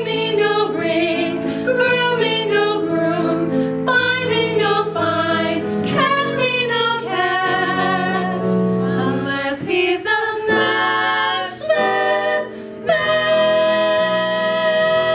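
Community choir singing with women's voices prominent, changing notes every second or so; near the end the voices settle into one long held chord.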